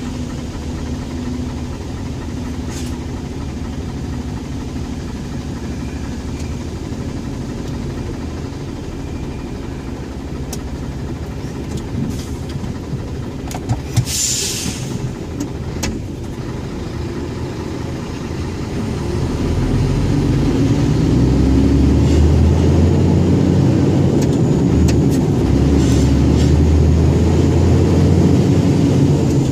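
Scania 114G 340 truck's six-cylinder diesel engine running steadily, with a short hiss about halfway through. From about two-thirds of the way in, the engine gets louder and deeper and stays that way, as it is revved or put under load.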